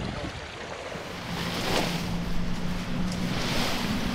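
Small waves lapping on a lochside shingle shore, with wind on the microphone. A steady low hum comes in about a second in.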